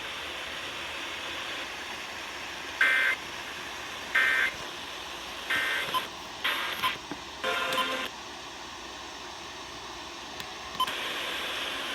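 Three short bursts of EAS SAME data tones (the warbling 'end of message' code), about a second and a half apart, closing a NOAA Weather Radio flash flood warning, over steady radio hiss. Two rougher bursts of noise follow, and the hiss grows louder near the end.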